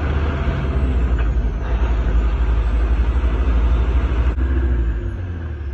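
Heavy diesel semi-truck engine running under way, heard from inside the cab as a loud low rumble with road noise. The engine note changes and the rumble eases about four seconds in.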